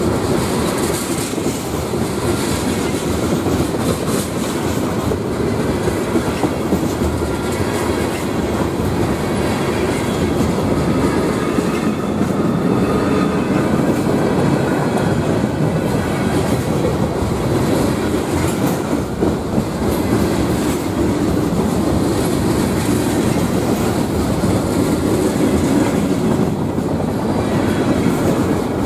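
Mixed manifest freight train rolling past close by. The wheels of its tank cars, covered steel coil cars and lumber-laden centerbeam flatcars run over the rails with a steady, loud rumble and clickety-clack.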